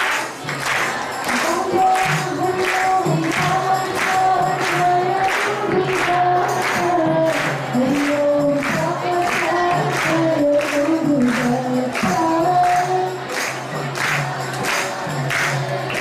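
Group singing of a devotional song, with a steady beat of percussion strikes about twice a second over a held low tone.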